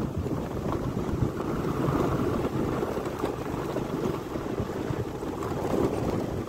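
Wind blowing across a phone's microphone in open country: a steady, rough rumble without any clear rhythm or tone.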